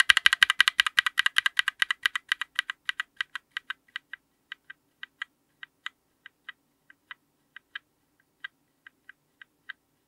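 A Novelkeys x Kailh Cream linear keyboard switch with a GMK ABS keycap on an FR4 plate, clicking sharply as the key is struck over and over. The clicks come in a rapid, loud run at first, then thin out and fade to a scattered couple of clicks a second.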